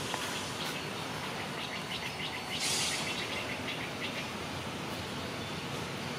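A small bird twittering in a quick run of short high chirps that stops about two-thirds of the way through, with a brief hissing rush a little before the middle, over steady outdoor background noise.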